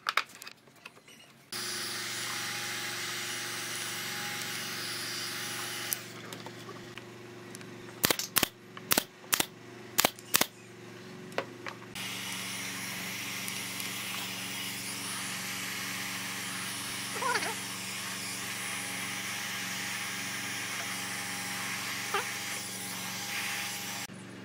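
Handheld electric heat gun running with a steady fan whir and hum, used to soften a thin pine strip for bending. It runs for a few seconds, stops, and starts again about halfway through. In the gap between, a nail gun fires about half a dozen sharp snaps.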